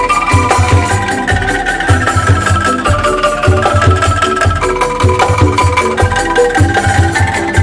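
Calung ensemble of bamboo tube xylophones struck with mallets, playing a quick melody over a steady beat of low drum hits.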